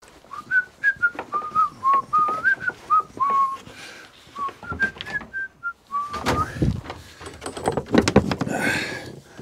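A man whistling a tune, clear single notes stepping up and down, for about the first six seconds. Then clattering and knocks as a plastic Flymo mower and a wheelie bin lid are handled.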